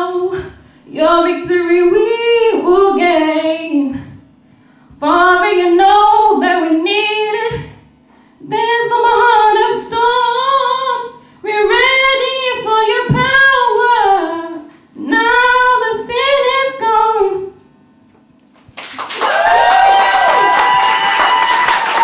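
A woman singing a gospel song unaccompanied into a microphone, in several phrases with short pauses between them. Near the end the song stops and the audience breaks into applause and cheering.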